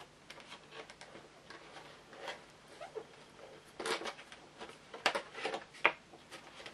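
Doll box being handled and opened: irregular rustling and clicks of cardboard and plastic, with a few sharper clicks about four to six seconds in, as the tabs holding the doll inside are worked loose.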